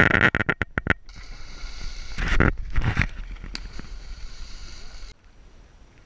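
A person leaping from a rock into a river: a loud, choppy rush of noise as they jump past close by, then a loud splash-like burst about two seconds in, with a steady hiss of water that drops away suddenly near the end.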